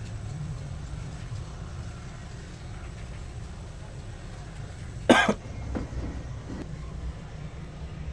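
A person coughs once, sharply, about five seconds in, with a fainter sound or two just after, over a steady low hum.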